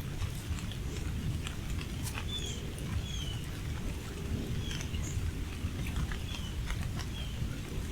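Rain pattering in small scattered ticks over a steady low rumble, while a bird gives short, falling chirps about once a second.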